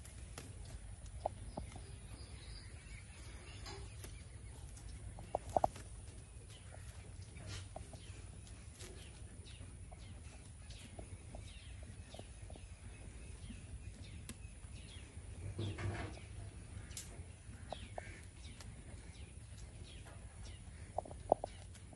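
Farmyard ambience: a steady low rumble with goats cropping greens in many short tearing clicks, and a few brief bird calls. The loudest calls come about five seconds in and near the end.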